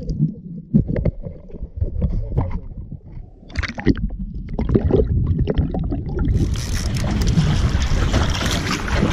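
Muffled underwater sound from a camera held below the surface, with scattered knocks and clicks. About six seconds in, the camera comes out of the water and the sound turns suddenly into open splashing water and wind on the microphone.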